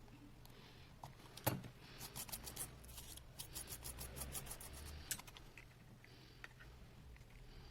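Small repair tools clicking and scraping on an opened iPhone 6s: one sharp click about a second and a half in, then runs of quick, light ticks and scratches.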